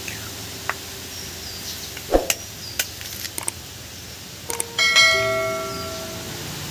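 An egg tapped against the rim of an aluminium pan and its shell cracked open: a few sharp knocks and clicks about two to three and a half seconds in. Near the end a loud bell-like chime sound effect from a subscribe-button animation rings out and fades.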